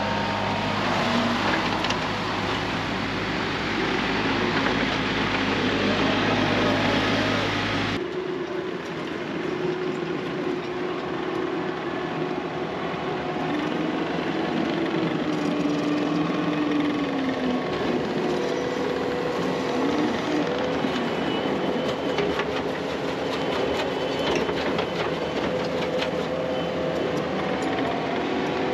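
Engine of a machine running steadily with a low hum. About eight seconds in the sound changes abruptly, and the engine's pitch then rises and falls as it works.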